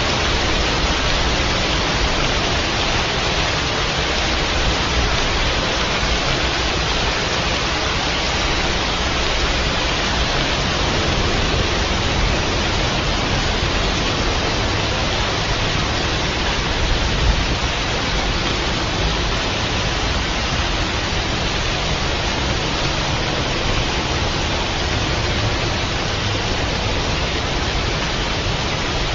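Steady, dense rainfall, an even hiss with no breaks.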